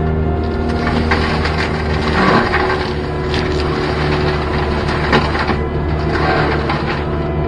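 Gyrotrac 500HF forestry mulcher on a CAT 289D3 compact track loader running and shredding thick brush, with crunching and splintering wood over the machine's steady drone. The loudest crunches come about two seconds in and again about five seconds in.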